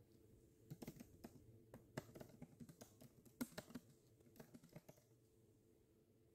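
Faint typing on a computer keyboard: a run of quick, irregular key clicks that thins out and stops about five seconds in.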